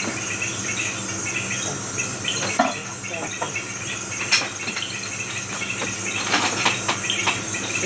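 Steady night chorus of insects, a continuous high trill, with scattered chirps and a sharp click about four seconds in.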